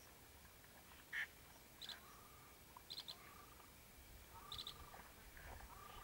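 Short high duck calls, four or so spaced about a second apart, the first, about a second in, the loudest.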